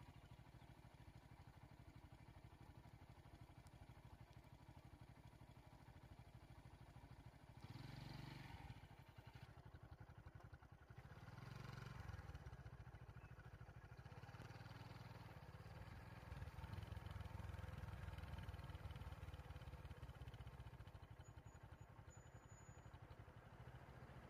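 Faint low rumble of a vehicle engine running, swelling briefly about a third and halfway in and again for a few seconds later on.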